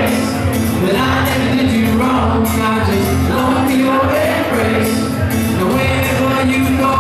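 Live folk-pop song: a man singing into a microphone over a band backing with a steady bass line and a regular percussive beat.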